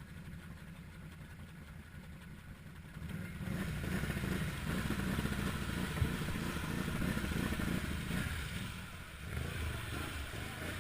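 ATV engine running, picking up and getting louder about three and a half seconds in as the machine is ridden on, with one sharp knock about six seconds in.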